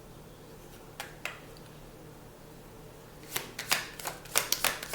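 Tarot cards being handled and shuffled: two soft clicks about a second in, then from about three seconds in a quick, uneven run of sharp card slaps and clicks.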